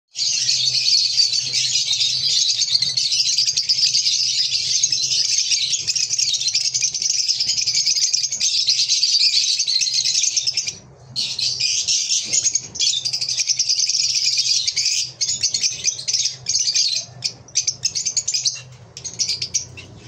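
A flock of lovebirds chattering: a dense, continuous stream of high-pitched chirps that breaks off briefly about eleven seconds in, then comes in shorter separate bursts over the last few seconds. A faint steady low hum runs underneath.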